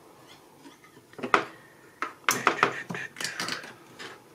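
Light metallic clicks and scrapes of heavy rebar tie wire being handled and laid against a steel ruler: one sharp click about a second in, then a cluster of clicks and scrapes from about two seconds in.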